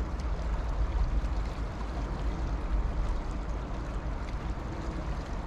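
River water rushing steadily, with a low rumble underneath.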